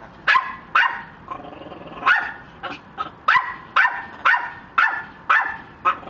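Amazon parrot barking like a dog: about ten short, sharp barks about half a second apart, with a gap of over a second after the first two.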